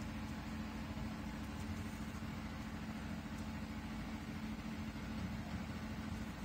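A steady, even low machine hum with a faint hiss, with no distinct strokes or knocks.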